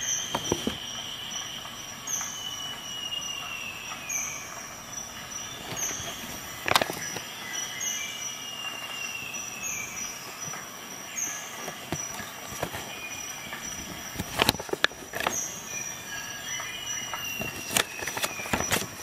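Paper instruction leaflet handled, giving a few sharp crinkles and taps, the loudest about a third of the way in and again about three quarters through. Behind it runs a high steady tone with a short chirp about once a second and a squeal that falls in pitch every six or seven seconds, from a source that cannot be made out.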